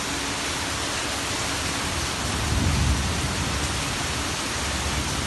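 Heavy rain pouring steadily, a dense even hiss, with a low rumble swelling briefly about halfway through.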